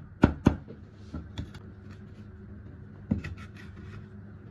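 Cleaver chopping braised pork, scallion and green chili on a wooden chopping block: two last quick chops, then the chopping stops. About three seconds in the cleaver knocks once on the board, followed by faint scraping as the chopped filling is scooped up on the blade.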